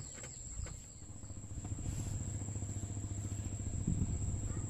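A motor engine's low drone builds up about a second in and then runs steadily, over a steady high-pitched whine.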